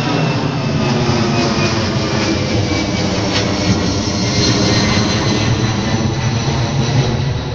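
Boeing 757 passing low overhead, its twin jet engines giving a loud, steady noise with whining tones that slowly fall in pitch as it goes by.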